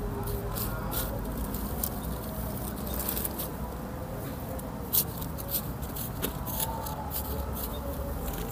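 Hands working damp soil around celery shoots in black plastic polybags: scattered small clicks and rustles, with one sharper click about five seconds in, over a steady low background rumble.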